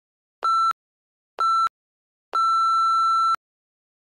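Workout interval-timer countdown beeps: two short beeps about a second apart, then one long beep lasting about a second. The long beep marks the end of a 30-second work interval and the start of the 10-second rest.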